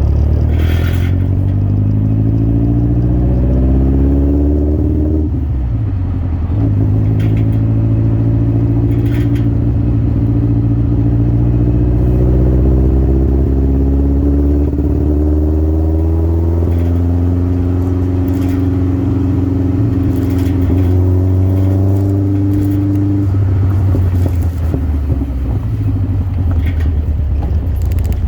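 Birkin Seven sports car's engine pulling through the gears. Its pitch climbs steadily, drops at a gear change about five seconds in, climbs again for a long stretch, and falls away a few seconds before the end.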